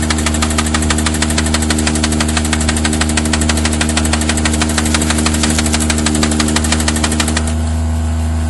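Forestry machine's engine running steadily under a harvester head at work. A rapid, even ticking rides over it and stops suddenly near the end.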